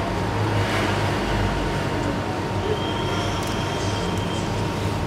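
Steady background rumble and hiss with a constant high-pitched hum, and a second, higher tone for about a second and a half midway.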